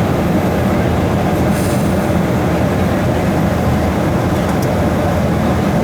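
Steady cabin noise inside a Boeing 757-200: a constant low hum with a wash of airflow, unchanging throughout.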